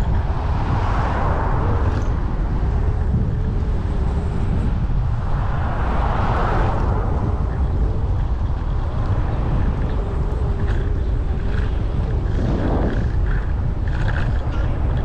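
Steady low wind rumble on an action camera's microphone while riding a Segway Ninebot Max electric kick scooter, mixed with tyre and road noise. A broader rushing swells up twice, about a second in and about six seconds in.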